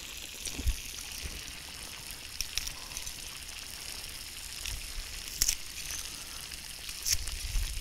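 Garlic cloves being peeled by hand with a small knife: a few short clicks and taps over a steady high hiss.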